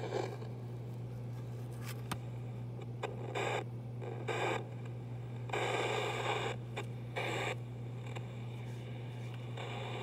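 Sony ICF-P36 portable radio with a bad volume wheel being turned: over a steady low hum, bursts of crackly static cut in and out five or so times. The crackle is the sign of the faulty volume control making intermittent contact.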